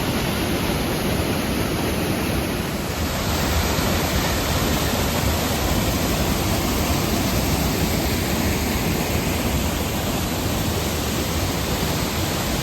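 Waterfall rushing, a steady, loud roar of falling water.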